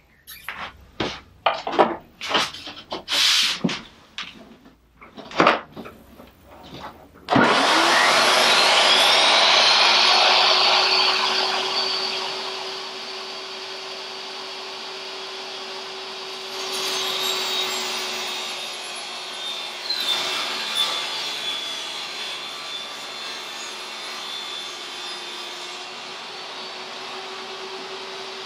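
Clatter and knocks of handling for about seven seconds. Then a Bosch benchtop table saw switches on, its motor whining up to speed, and runs steadily while a plywood sheet is pushed through the blade, the sound swelling twice as it cuts.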